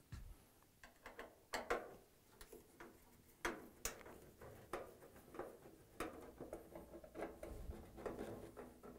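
Faint, scattered clicks and small metallic rattles of a Phillips screwdriver backing screws out of a washer's sheet-metal front panel, with the loose screws being handled.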